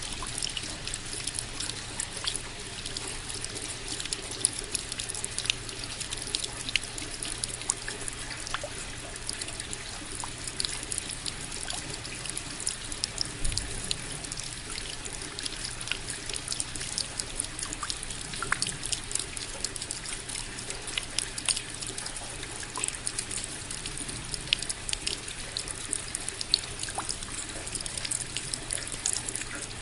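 Steady rain, with many separate drops landing close by as sharp, irregular ticks over a constant wash of falling water.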